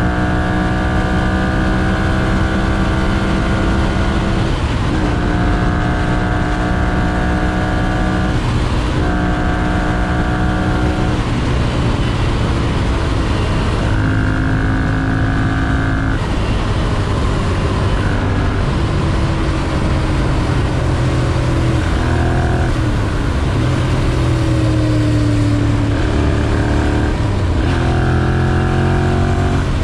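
2011 Ducati Monster 696's air-cooled L-twin engine and exhaust under way, the pitch climbing through the gears with upshifts about four, nine and eleven seconds in. In the second half the revs sit lower and steadier, falling away now and then as the bike rolls off the throttle.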